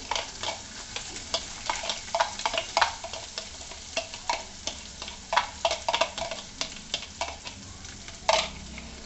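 Chopped onions frying in hot oil with whole cumin seeds in a nonstick kadai: a steady sizzle with irregular crackles and pops, one sharper crack near the end.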